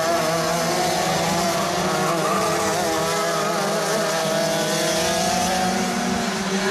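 Several two-stroke racing kart engines running at high revs together, their pitches wavering up and down as the karts lift and accelerate through the corners.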